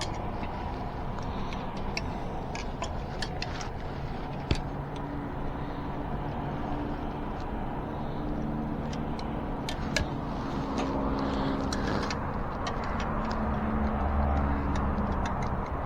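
Scattered small metallic clicks and taps of hand tools on bicycle brake and axle parts, over a steady background hum. A low droning hum of several steady tones comes in about five seconds in and grows louder near the end.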